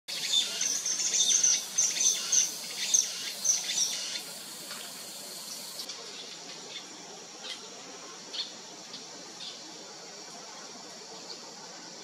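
Common kingfisher giving a rapid run of shrill, high-pitched piping calls for about the first four seconds, then only a few scattered faint chirps over a steady background hiss.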